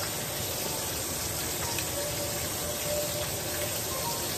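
Ribeye steak sizzling steadily in a hot pan.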